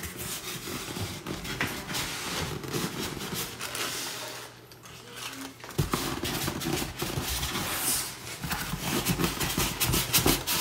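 Styrofoam packing insert rubbing and scraping against a cardboard box as it is worked loose by hand, with many short scratchy knocks and a brief lull about halfway.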